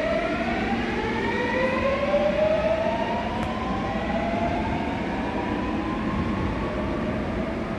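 Seoul Subway Line 8 electric train pulling out of the station: its motor whine rises in pitch through several stacked tones as it accelerates away, over the rolling rumble of the wheels.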